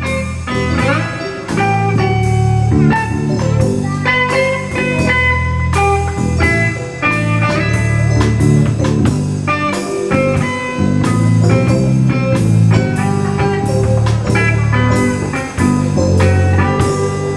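A live band playing an instrumental passage, with guitar notes over drum kit and bass in a steady beat.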